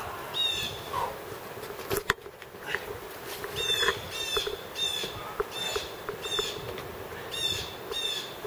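A songbird calling over and over, a series of short, high notes that each sweep downward, some coming in quick pairs. A sharp knock sounds about two seconds in.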